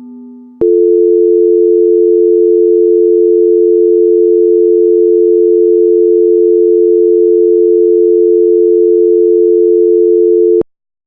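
Mock Emergency Alert System attention signal: a loud, steady two-tone alarm held for about ten seconds, switching on abruptly about half a second in and cutting off with a click near the end.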